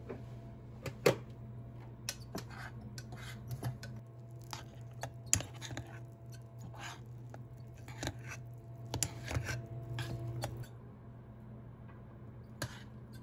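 A spoon clicking and scraping against the nonstick inner pot of a mini rice cooker while cooked eggplant rice is stirred and scooped out, with sharp clicks about a second in and near the middle. A steady low hum runs underneath.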